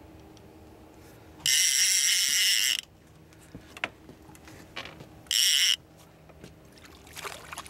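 Fishing reel drag buzzing as a hooked fish pulls line off against a bent rod: one burst of just over a second, then a shorter one a few seconds later.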